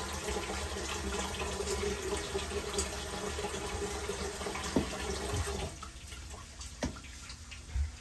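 Kitchen tap running into a stainless-steel sink, then shut off about six seconds in, followed by a couple of light knocks.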